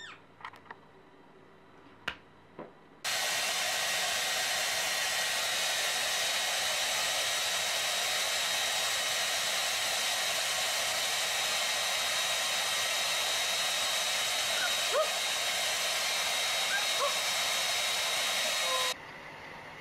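Handheld hair dryer running: a steady rushing blow with a faint high whine, switching on about three seconds in and cutting off abruptly near the end.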